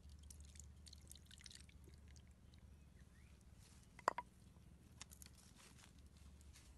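Faint wet scraping and small ticks as a thick sauce is poured and scraped out of a clay mortar into a coconut-shell bowl, then one sharp knock about four seconds in as a wooden pestle strikes the clay mortar, followed by a couple of light clicks.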